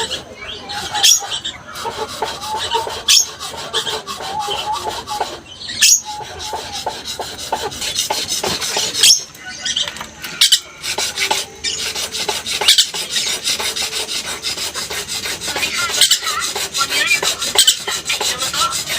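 Lorikeet chattering continuously in harsh, raspy screeches and squawks, a rapid run of strokes with no real pause.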